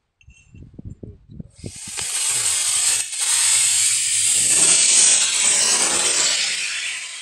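Model rocket's D-class solid motor lighting: about a second and a half of irregular crackling pops, then a sudden loud rushing hiss as the motor burns and the rocket climbs, easing off near the end.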